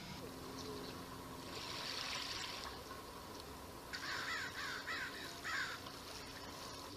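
Small waves lapping faintly at a sandy shore. About four seconds in, a bird calls four or five times in quick succession.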